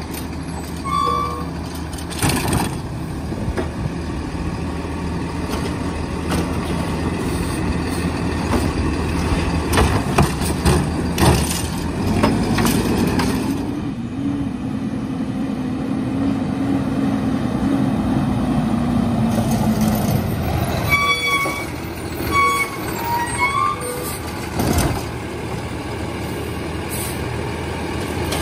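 Diesel engine of a Kenworth garbage truck with a Curbtender automated side-loader body running steadily as the truck works its route and the hydraulic arm lifts a cart. A held drone sits over the rumble through the middle and drops away, and a few short high squeaks come a little past two-thirds of the way through.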